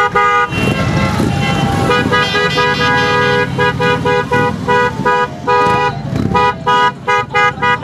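Motorcycle horns honking in repeated beeps, some held longer and a quick run of short toots near the end, as a line of touring motorcycles rides slowly past with their engines running underneath.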